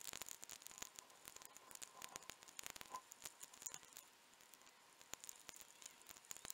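Faint, irregular clicks of raindrops striking the camera, several a second, over a light hiss.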